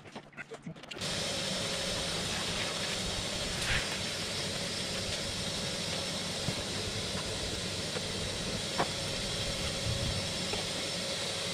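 Vacuum cleaner switched on about a second in and running steadily with a constant whine and hiss while it cleans up the floor, with a couple of brief clicks of debris.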